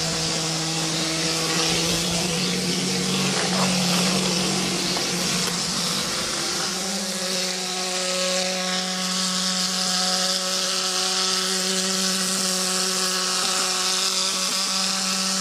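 Plaster spraying machine running: a steady motor hum under the hiss of compressed air blasting mortar out of a hose-fed spray gun onto brickwork. The hum steps slightly higher about seven seconds in.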